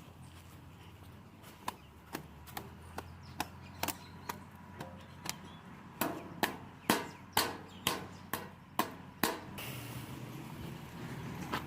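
A run of sharp knocks, sparse at first, then louder and about two a second through the middle, over a faint low steady hum.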